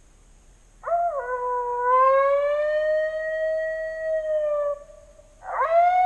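Coyote howling: a long drawn-out howl that breaks briefly at its start, then slides up and holds steady for about four seconds before dropping off, and a second howl begins near the end.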